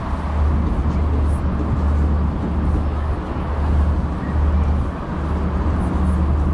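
Steady rumble of city road traffic, cars passing on a busy street.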